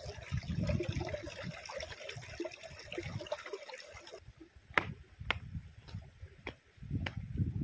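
Shallow river water trickling over flat rock, with low thuds of footfalls. About four seconds in the water hiss drops away, and sandal footsteps click on bare rock at about two steps a second.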